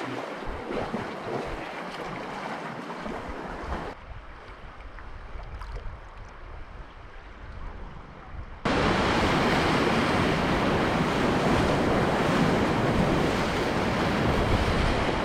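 Rushing river whitewater, a steady hiss and roar of water with no clear individual splashes. It drops quieter about four seconds in, then jumps suddenly much louder and fuller about nine seconds in.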